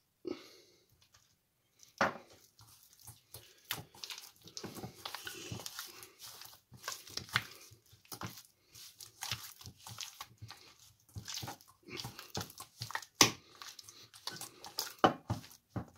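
Hands kneading a raw pork neck with mayonnaise and spice rub in a stainless-steel bowl: irregular wet squishing and rubbing, with a few sharper knocks, the loudest about two seconds in.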